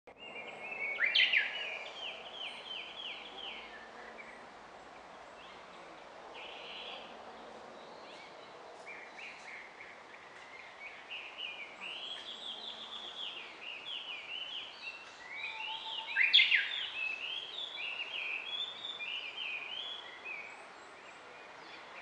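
Wild songbirds singing in woodland, among them a Japanese bush warbler (uguisu): quick runs of short repeated chirping notes throughout, with two loud, sharp sweeping calls, one about a second in and one about sixteen seconds in.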